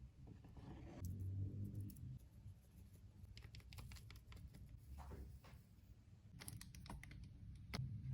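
Faint, irregular light clicks and taps from handling kitchen items during food preparation, in two short clusters with a louder click near the end.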